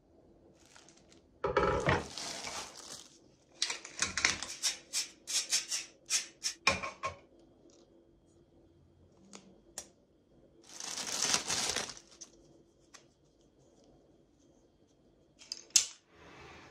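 Metal kitchen utensils being handled and unpacked on a countertop: bursts of plastic packaging rustling and a quick run of sharp metallic clicks.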